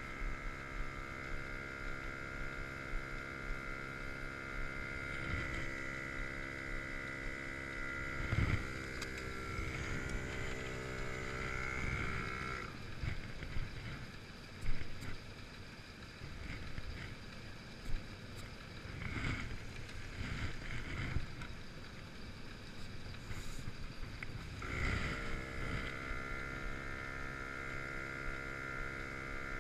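Air compressor running steadily while inflating a freshly plugged tire. It stops about twelve seconds in, leaving a stretch of knocks and handling sounds, then starts again near the end.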